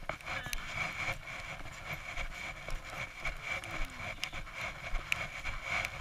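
Footsteps of people and a dog crunching over snow, with scattered short crunches over a steady low rumble and a faint steady high whine.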